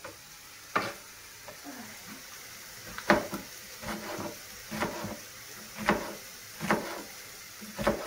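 Kitchen knife chopping green peppers on a wooden cutting board: sharp knocks of the blade striking the board, roughly one a second and unevenly spaced, over a faint sizzle of eggplant frying in a pan.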